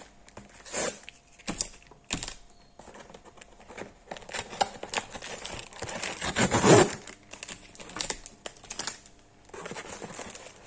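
A cardboard mailer box being torn open by hand. There are a few sharp snaps of cardboard in the first couple of seconds, then rustling and tearing, with the loudest rip a little past the middle.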